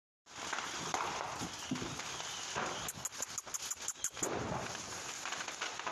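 Horse and person moving about in a dirt pen, with hoof and foot sounds on the ground, then a quick run of sharp cracks about three seconds in.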